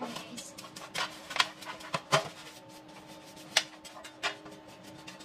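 Pastry brush scraping and tapping inside a loaf pan while greasing it with butter: irregular light clicks and knocks, a few sharper ones around two seconds in.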